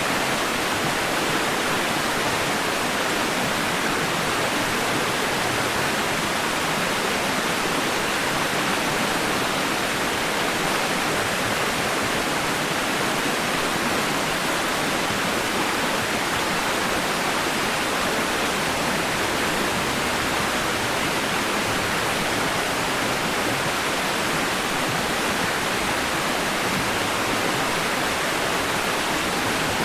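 Steady white noise: an even, unbroken hiss that stays the same throughout, strongest in the upper middle with little bass.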